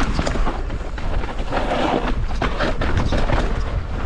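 Evil Insurgent mountain bike rolling down a steep, loose dirt descent: tyres sliding and crunching on loose soil over a steady low rumble, with frequent short knocks and rattles from the bike over bumps.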